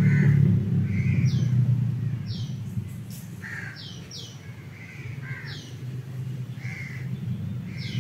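Birds calling repeatedly in short, falling chirps and calls, over a low rumble that fades down through the first half and swells again near the end.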